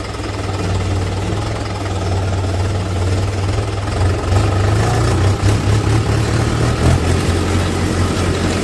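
Heavy diesel engine of earthmoving machinery running steadily with a low drone.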